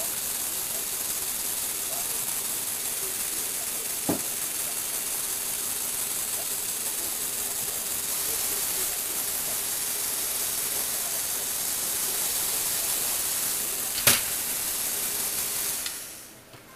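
Lego Technic mechanism's electric motor and gear train running steadily as it turns and tilts the platform, with a small click about four seconds in and a louder one about fourteen seconds in. The running sound stops shortly before the end.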